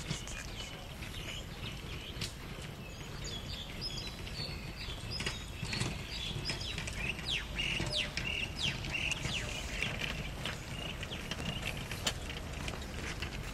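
Cattle hooves clip-clopping on wet brick paving as the cows walk away, with birds chirping in short, falling calls through the middle over a steady outdoor hiss.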